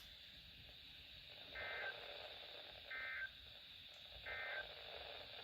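NOAA Weather Radio broadcast sending the Emergency Alert System end-of-message signal: three short, warbling two-tone data bursts about a second and a half apart, over steady radio static.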